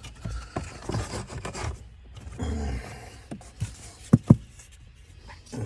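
Plastic interior parts being refitted behind the glove box: scraping and rubbing as the cabin air filter cover and glove box go back in, then two sharp clicks about four seconds in as a part snaps into place.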